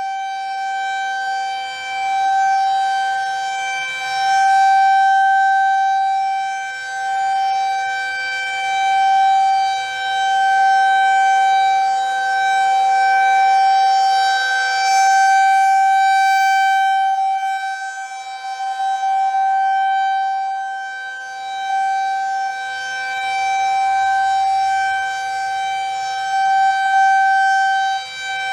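Federal Signal 2001 rotating tornado warning siren sounding a loud steady tone at full pitch. Its loudness swells and fades every two to three seconds as the rotating horn sweeps past.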